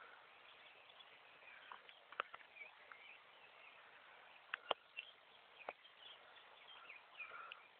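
Near silence: faint outdoor ambience with distant bird chirps and a few faint, sharp clicks.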